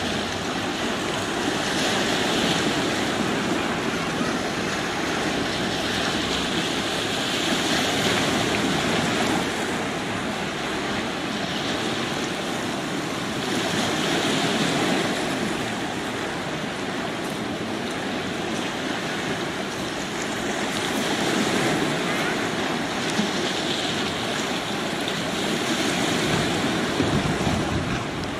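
Small sea waves washing in among the black volcanic stones of a rocky beach, swelling and easing every few seconds.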